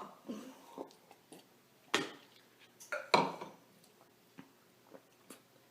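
A few light clinks and knocks of a glass and a spoon being handled, the loudest about two and about three seconds in, with faint clicks after.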